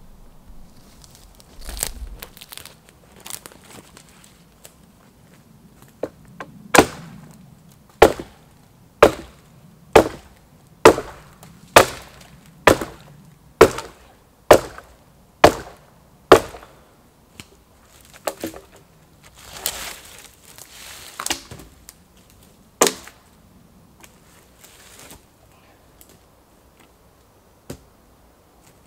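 Axe chopping wood: a run of about eleven sharp blows roughly a second apart, then a pause and a few more scattered blows.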